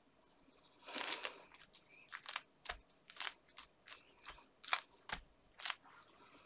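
Hands pressing down and smoothing a closed cardstock card to set the glue inside. There is a longer papery rustle about a second in, then a string of short, crisp scuffs and crinkles of card and paper.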